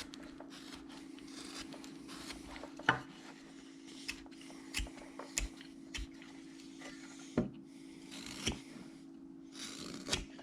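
Carving knife shaving and slicing wood in short, irregular strokes with occasional sharp clicks, over a steady low hum.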